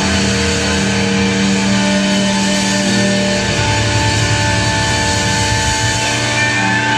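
Heavy metal band playing live, loud distorted electric guitars and bass holding sustained chords, the low note shifting down about halfway through.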